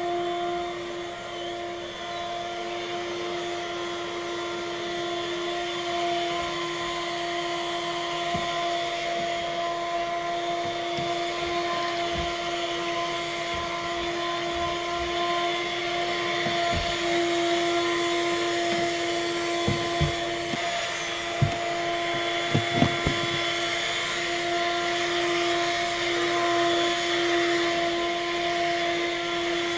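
Vacuum cleaner running steadily with a constant pitched hum, with a few sharp clicks and knocks about two-thirds of the way through.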